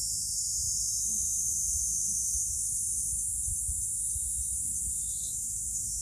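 Outdoor ambience: a steady high-pitched hiss over a low, uneven rumble.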